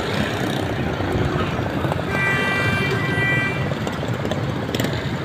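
Road traffic running past, with a horn sounding one held chord for about a second and a half midway.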